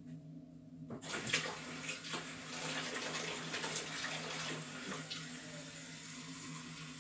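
Water running from a tap, turned on about a second in and then running steadily, with a few small clicks early on.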